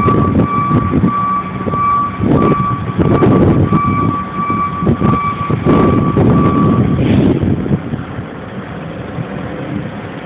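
Gusts of wind buffeting the microphone, rising and falling. Over them a high electronic warning beep repeats steadily with short gaps, then stops about seven seconds in.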